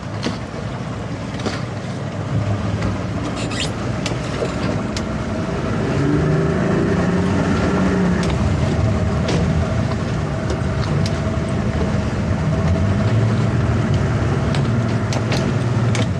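A towboat's engine running at low speed, its note getting louder and stronger about six seconds in as the boat manoeuvres.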